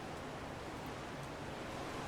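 Strong wind blowing steadily, an even noise with no breaks.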